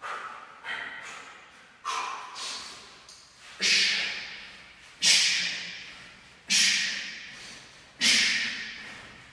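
A man's sharp, forceful exhales, one at each swing of a heavy kettlebell, about every one and a half seconds. The first two are lighter and the next four louder, each starting suddenly with a hiss and a low grunt, then fading.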